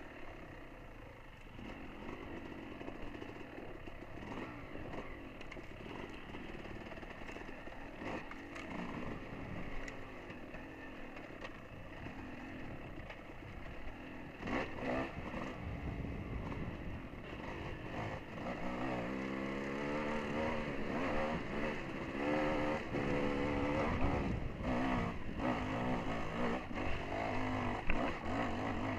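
Dirt bike engine on a trail ride: low and quieter for the first half, then louder from about two-thirds in, with revs rising and falling as it accelerates. Occasional short knocks as the bike rides over rough ground.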